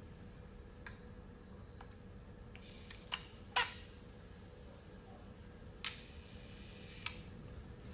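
Zeiss Ikon Contina's Prontor leaf shutter and advance mechanism clicking as the camera is wound and fired, the loudest clicks about three and a half seconds in. Near the end the shutter opens and snaps shut a little over a second later: a 1-second exposure running at the right speed.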